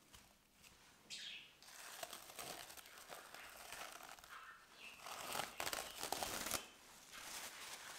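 Plastic cling film crinkling and crackling as it is peeled back off a glass bowl, loudest a little past the middle.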